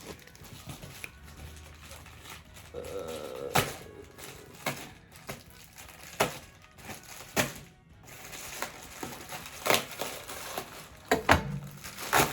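Plastic packaging and supplies being handled and set down: scattered light clicks and knocks, about a dozen, with faint background music.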